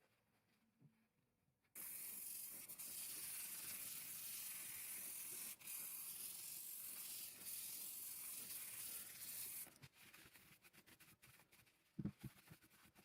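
Aerosol spray can spraying in a long hiss of about eight seconds, with a brief break midway. Light clicks and a couple of knocks follow near the end.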